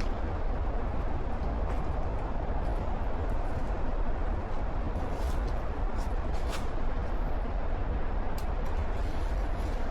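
Steady outdoor ambience in light rain: a constant low rumble and hiss, with scattered faint ticks at irregular moments.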